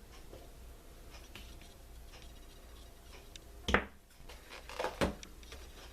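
Faint handling of a small toy figure and its little plastic parts, with soft rustling and light ticks, and two sharper taps a little over a second apart past the middle.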